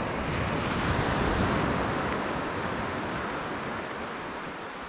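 Sea surf breaking and washing up the beach: a steady rush of water that swells about a second in and then slowly fades.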